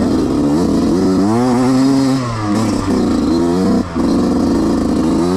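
Dirt bike engine revving up and down as the rider works the throttle through the course. The pitch climbs to a peak about two seconds in and falls off, with a brief drop in loudness shortly before four seconds as the throttle is closed, then it picks up again.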